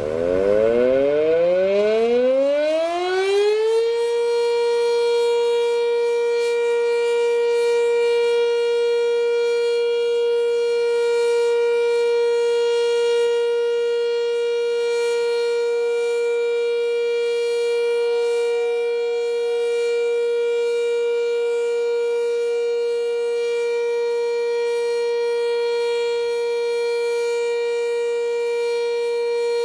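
Sentry 3V8 outdoor warning siren winding up, its pitch rising over about four seconds, then holding one steady tone: the steady alert signal of a tornado siren test.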